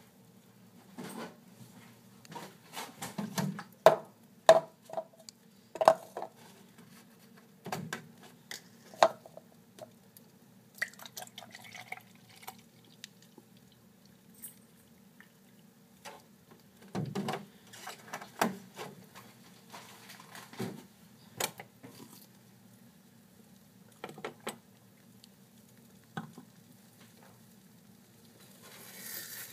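Scattered clinks and knocks of kitchen things being handled and set down on the counter, some ringing briefly, over a faint steady hum. Near the end, scrambled eggs in a skillet start to sizzle.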